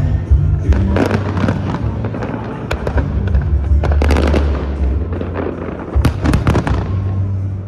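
Fireworks display: aerial shells bursting in a run of bangs and crackles, densest in the middle and again in a cluster about six seconds in, over the show's bass-heavy music.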